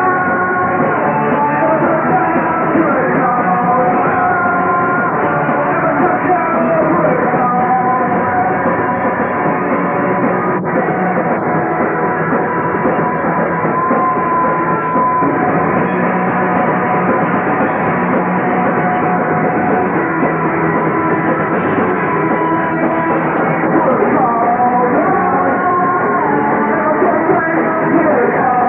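A rock band playing live, with electric guitars, drums and a singer, loud and continuous throughout.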